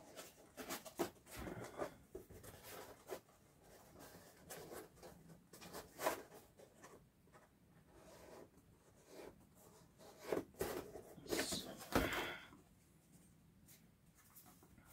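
Cut foam helmet pieces being handled: scattered light rubbing, scraping and tapping as pieces are held against the helmet shell and shuffled on newspaper, with a few louder scrapes about six, ten and twelve seconds in.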